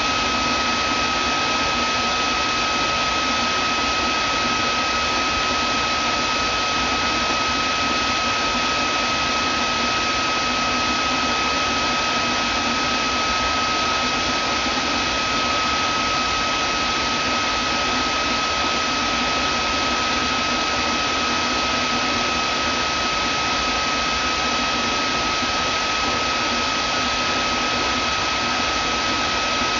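Vacuum cleaner running steadily: an even rushing noise of its motor and airflow, with a high steady whine over it.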